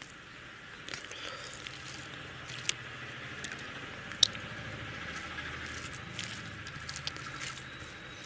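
Fingers squishing rice and chicken curry gravy together on a steel plate, wet and soft, with scattered small clicks. A sharp click comes about two and a half seconds in, and a louder one about four seconds in.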